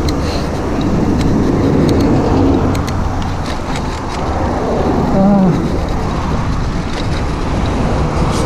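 Steady rushing wind noise on the microphone while riding a bicycle downhill, with road traffic going by.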